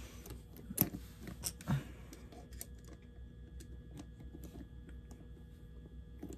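Light clicks and taps of small model-locomotive parts being handled and fitted together by hand, with a few sharper clicks in the first two seconds, then only sparse faint ticks.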